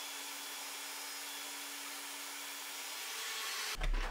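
Benchtop drill press running, its motor giving a steady hum under an even hiss while it drills small holes in an aluminium angle; the sound breaks off just before the end.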